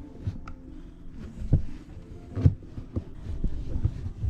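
Handling noise of a new cabin air filter being bent and pushed into its plastic housing: irregular low thumps and small clicks, with two sharper knocks past the middle.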